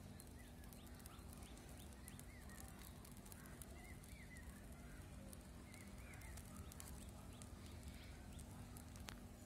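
Quiet outdoor background with faint, scattered bird chirps every couple of seconds over a low steady hum.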